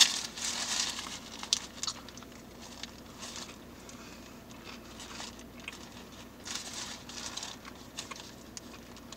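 Paper wrapper crinkling around a crispy fried chicken sandwich, with the crunch of biting into its breading and chewing, in a few short bursts.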